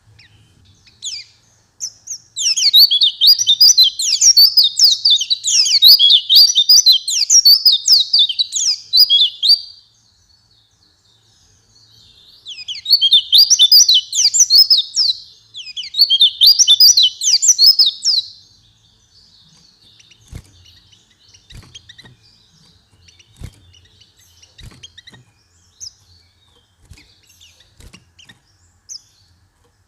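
White-eye (pleci) singing a fast run of high, rapid notes for about seven seconds, then two shorter bursts of the same song. After that come faint scattered chirps and small clicks.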